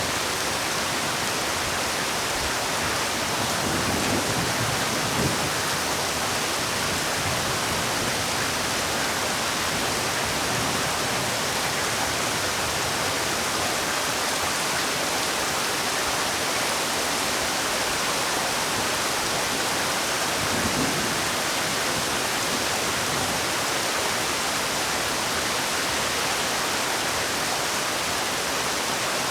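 Heavy rain falling steadily as an even, dense hiss, with a couple of faint low swells a few seconds in and again past the middle.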